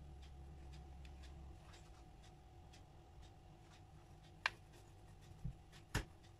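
Faint scratchy rustle of crushed hazelnuts as a ball of butter-cookie dough is rolled in them by hand. Three sharp clicks on the ceramic plate come in the last two seconds.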